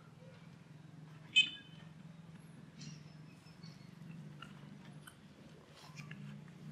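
Bare hands digging and pulling up wet mud clods, with soft squelching and small crackling clicks over a steady low hum. A short, sharp, high chirp rings out about a second and a half in, and fainter high calls follow a little later.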